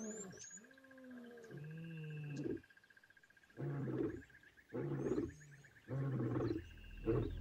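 Lion roaring: a few long moaning calls that slide down in pitch, then after a short pause a run of short deep grunts about one a second. A steady high trill runs underneath.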